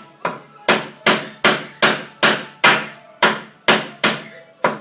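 Steady hammering: a hammer striking about two and a half times a second in a regular rhythm, each blow sharp with a short ring.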